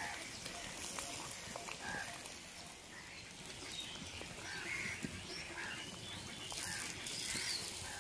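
Wooden spatula stirring chunks of raw mango cooking in jaggery in a clay pot, with a few soft knocks against the pot. Faint animal calls can be heard in the background, several times in the second half.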